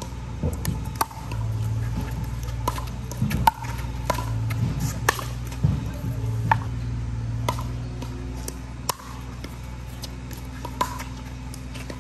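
Pickleball rally: about a dozen sharp, irregularly spaced pops of paddles hitting the plastic ball, with the ball bouncing on the hard court, over a steady low hum.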